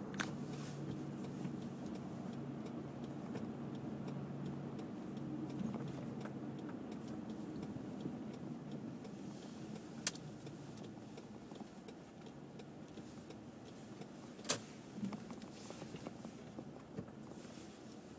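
Car running at low speed, heard from inside the cabin: a steady low engine hum that eases off through the second half as the car slows. A few sharp clicks break in, the loudest about ten seconds and fourteen and a half seconds in.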